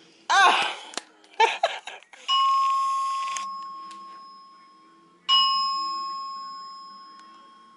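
Hotel fire alarm chime: a single bell-like electronic tone struck twice, about three seconds apart, each ringing out slowly. Two brief vocal sounds come before it in the first two seconds.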